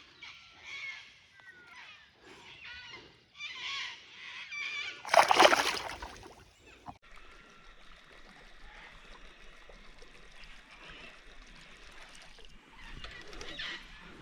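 A loud splash in the river about five seconds in, with birds chirping before it and a steady hiss of running water or wind afterwards.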